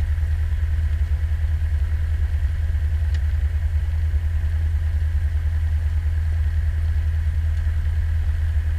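Cessna 172's piston engine and propeller idling steadily at about 1000 rpm during pre-takeoff checks, heard inside the cabin as a deep, even drone.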